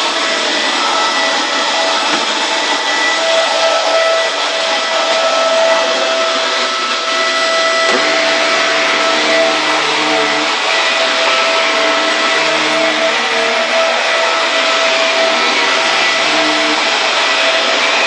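Dyson DC24 Multi Floor upright vacuum cleaner running with a steady motor whine as it is pushed over a wood floor. About eight seconds in the sound changes as it moves onto a rug, and a lower hum comes and goes with the strokes.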